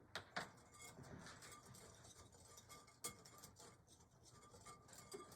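Faint scratching of a wire whisk stirring dry sugar, cocoa and cornstarch in a glass bowl, with a few light ticks of the wires against the glass, twice near the start and once about three seconds in.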